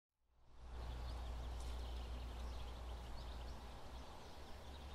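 Faint outdoor ambience: small birds chirping over a low, steady rumble.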